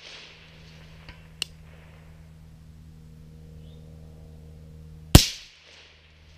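A single suppressed shot from an AR-15 SPR rifle fitted with a SilencerCo Omega suppressor, about five seconds in: a sharp crack that dies away in under half a second. Two faint ticks come a second or so earlier.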